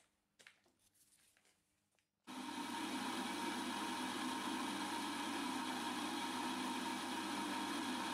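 Small hobby metal lathe running, turning down a steel shaft: a steady machine whir with a constant hum, starting abruptly about two seconds in after a few faint handling clicks and rubs.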